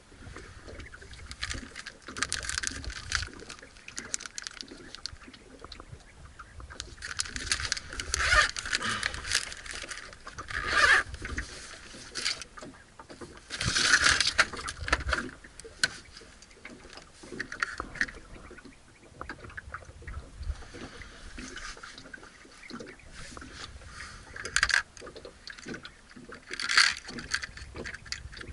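Fishing tackle being handled in a boat: a plastic bag of soft lures crinkling, then a clear plastic tackle box handled, opened and rummaged, its small lead weights rattling. Irregular rustles and clicks run throughout, with several louder bursts of scraping and clatter.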